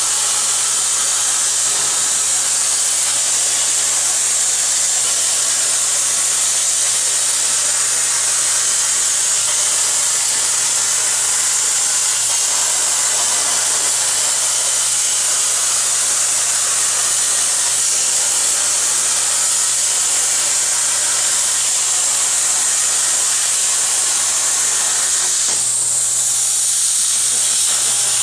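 CNC plasma cutter's torch hissing steadily as it cuts sheet metal, over a steady low hum; the sound shifts briefly near the end.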